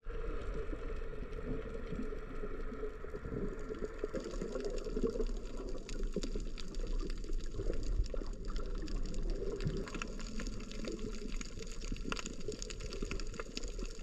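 Underwater sound picked up by a camera below the sea surface: a steady muffled rush of water with many faint crackles and clicks.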